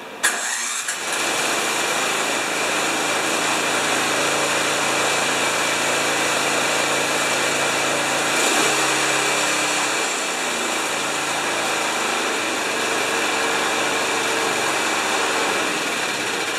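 Craftsman snowblower engine started on its AC electric starter: it comes on suddenly and runs steadily at three-quarter throttle with a little choke. Its note changes about eight seconds in.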